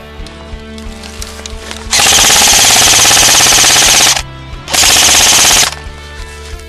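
Two loud full-auto bursts from an airsoft electric gun (AEG) firing BBs, the first about two seconds long, the second about a second, each a fast rattle of shots. Background metal music plays underneath.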